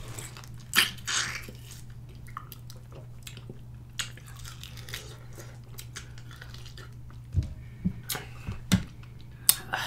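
Close-miked mouth sounds of biting into and sucking on lime and lemon wedges: scattered short wet clicks and smacks, with several close together about seven to nine seconds in, over a low steady hum.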